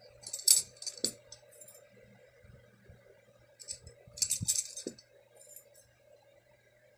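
Metal spokes clinking and jingling against one another and the wheel hub as they are fed into the hub flange holes while lacing a motorcycle wheel, in two short clusters of light clinks: one about half a second in, another around four seconds in.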